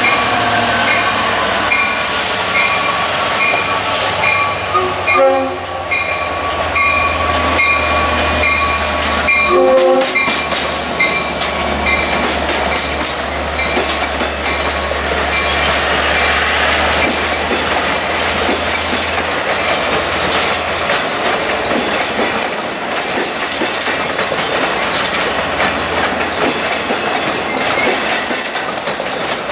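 Long Island Rail Road train sounding its horn in two long blasts as it approaches the grade crossing, the chord dropping slightly in pitch as it nears, while the crossing bell rings at about two strokes a second until about twelve seconds in. Then the locomotive's low rumble and the bilevel coaches' wheels clattering over the rails as the train passes.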